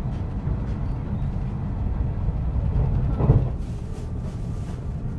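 Steady low rumble of the Twilight Express sleeper train running, heard inside the dining car, with a brief louder bump about three seconds in.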